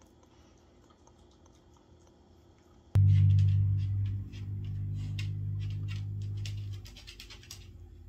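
A steady low hum cuts in abruptly about three seconds in, with irregular light clicks over it from a small dog's claws on a tile floor.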